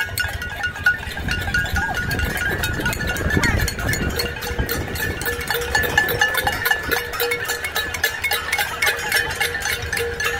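Metal pots, pans and lids banged rapidly with spoons, mixed with hand clapping: a dense, continuous clatter of clanks. A few steady ringing tones sound through it.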